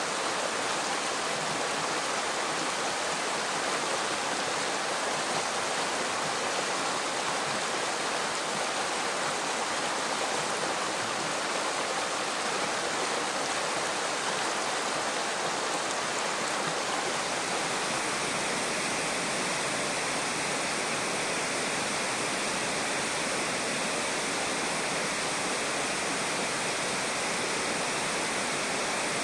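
Steady rushing of a mountain river's shallow current running over stones and gravel, its tone shifting slightly a little past halfway.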